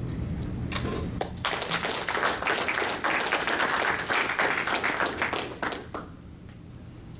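Audience applauding: a few scattered claps, then full applause from about a second and a half in, fading out about six seconds in.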